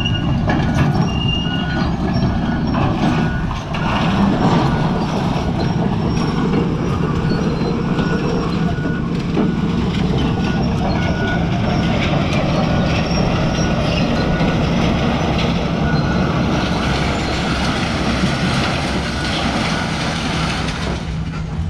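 Hitachi Zaxis 250LC-6 excavator's diesel engine running steadily, with scattered knocks and clatter. A short beep repeats about once a second through the first half.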